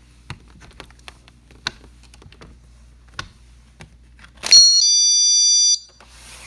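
Small GE wireless window/door alarm set to chime mode, sounding its high electronic chime once for about a second and a half. Before the chime come a few faint clicks as the unit is handled and switched.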